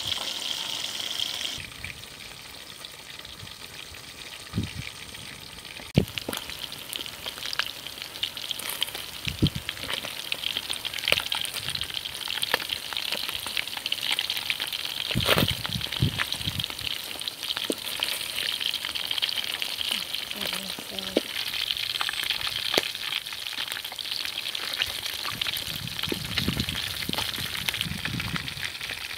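Whole fish frying in hot oil in a metal wok, a steady sizzle, with a metal spatula scraping and knocking against the wok as the fish are turned.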